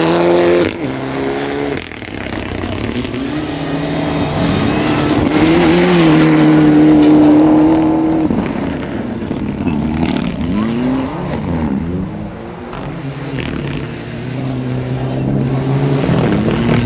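Rally car engine, a turbocharged Mitsubishi Lancer Evolution, revving hard through gear changes on a loose dirt stage. The pitch rises and falls again and again, with a long held high rev in the middle and dips as the driver lifts, over the hiss of tyres on gravel.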